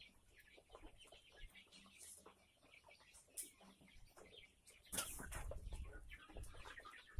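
A flock of young kampung chickens calling, many short, high calls overlapping. About five seconds in a louder low rustling rumble sets in suddenly beneath them.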